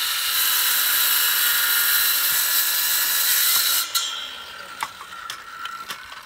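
Handheld circular saw cutting a Trex composite decking board, a loud steady whine that stops about four seconds in. The blade then winds down, with a few light knocks as the board is handled.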